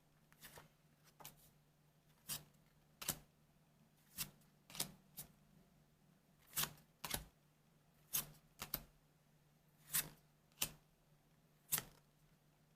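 Weiss Schwarz trading cards being flicked through one at a time: short, sharp card snaps at an uneven pace, about one a second.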